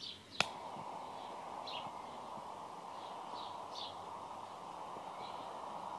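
A lighter clicks once, then gives a steady hiss as it is held lit inside a drinks can. Faint bird chirps come a few times over the hiss.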